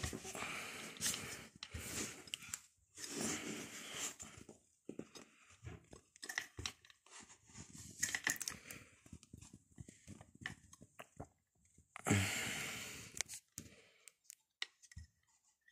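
Hands handling a Sturm AG9012TES angle grinder, its motor off: irregular rustling and rubbing with small clicks as the tool is moved and worked around its disc and guard. A louder rushing noise comes about twelve seconds in and lasts about a second and a half.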